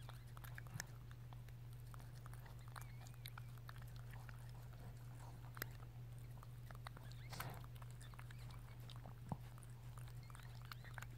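Faint, scattered wet clicks of a Chihuahua mother chewing at her newborn puppy's umbilical cord.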